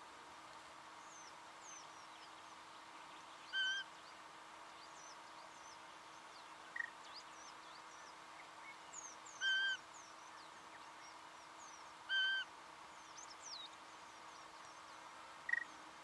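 Singing honeyeater calling: three loud, short, ringing notes a few seconds apart, with two briefer sharp notes between them. Faint high chirping and a steady hiss run underneath.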